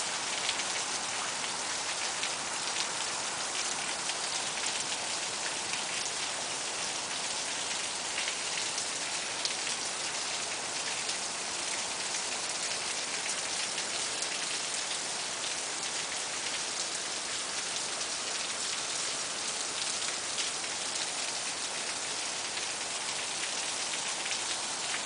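Steady rain falling, a dense even patter of drops hitting surfaces.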